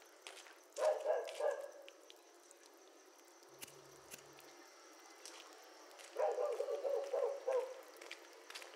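A dog barking in quick runs of barks, three times.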